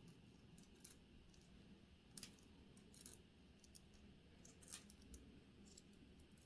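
Near silence broken by a few faint, sharp clicks of small watchmaking tools handling the parts of a wristwatch movement, the clearest about two seconds in and again near five seconds.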